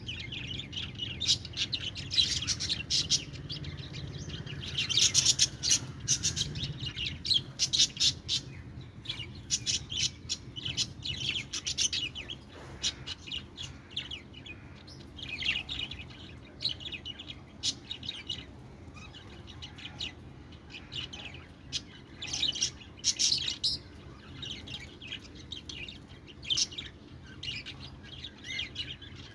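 Small pet parrots chirping and twittering in many quick, high-pitched notes, busiest in the first dozen seconds and sparser after that.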